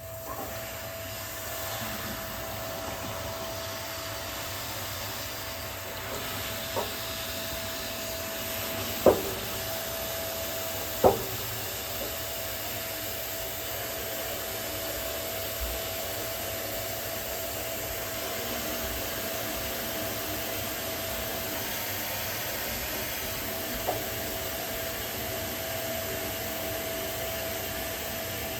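Gas water heater whining with its burner lit: a steady, fairly high single-pitched tone over a steady hiss, fading out for a few seconds past the middle and coming back. A few sharp clicks stand out, the loudest two about nine and eleven seconds in. The whine comes only while the burner is on, and the owner finds that letting off pressure does not change it.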